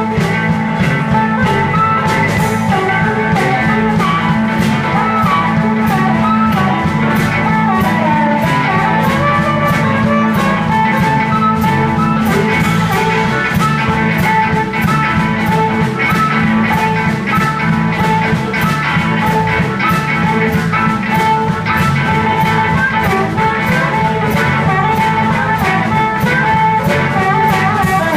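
Live blues band playing an instrumental passage: electric guitar, bass guitar and drum kit keeping a steady beat, with an amplified harmonica lead through the vocal microphone.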